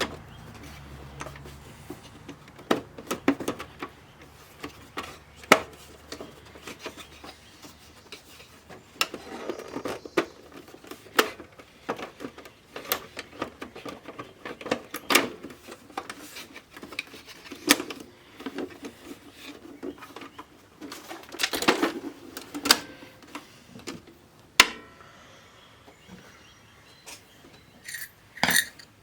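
Irregular clicks, taps and knocks from hand work on a boombox: tools and small plastic and metal parts being handled and set down on a workbench. A quick run of sharper metallic clicks comes near the end.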